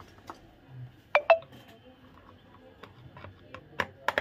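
Sharp metallic clicks as hands work the wires and terminals of an electric room heater's thermostat: two loud clicks close together about a second in, each with a brief ring, then a scatter of lighter clicks and taps near the end.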